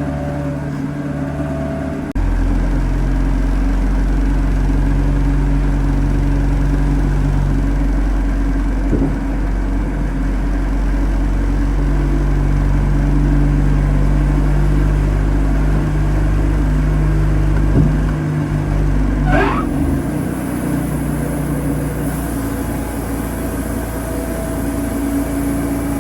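Wood-Mizer LT40 Super band sawmill running under load, its engine and blade working steadily through a cut. The sound steps up about two seconds in and changes near the end, with one short rising squeal.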